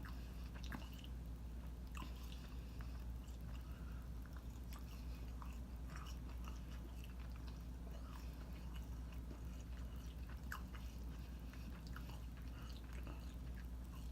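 A person chewing a mouthful of food close to the microphone, with small wet clicks and soft crunches scattered through.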